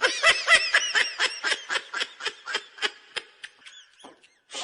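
High-pitched, rapid laugh sound effect, the meme "troll laughing" giggle, in quick pulses of about five or six a second that thin out and fade toward the end.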